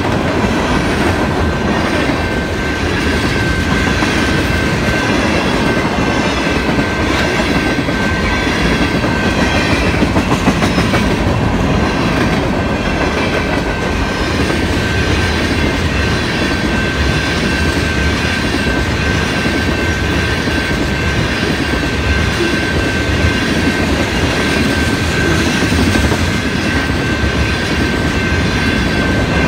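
Freight cars (tank cars and covered hoppers) rolling past at speed: a steady loud rumble of steel wheels on rail with rhythmic clickety-clack over the rail joints. A thin steady high-pitched tone runs over it.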